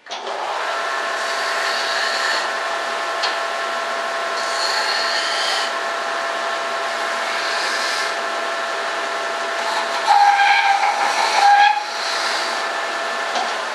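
An electric shop machine is switched on abruptly and runs steadily, with a whine over a rush of air. It grows louder for about two seconds near the end, then fades out.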